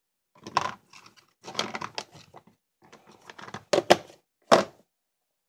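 Small plastic re-inker bottles knocking and clattering in a plastic storage case, then the case's lid pressed shut with a few sharp plastic snaps about two-thirds of the way through.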